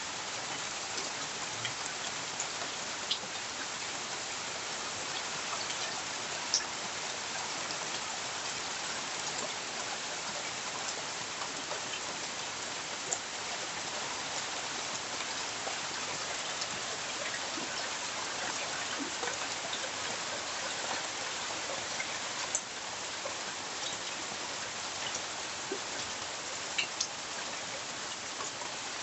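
Steady rain falling, with scattered single drops landing close by as sharp taps now and then.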